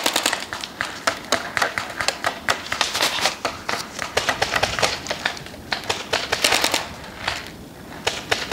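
Paintball markers firing in rapid strings, a dense run of sharp pops several times a second that thins out near the end.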